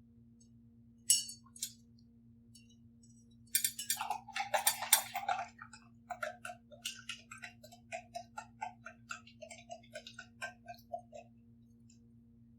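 Glass jar of soapy water being swirled to make a vortex, clinking and knocking. There is one clink about a second in, then a flurry of clinks around four to five seconds in, then regular knocks about three or four a second that stop near the end.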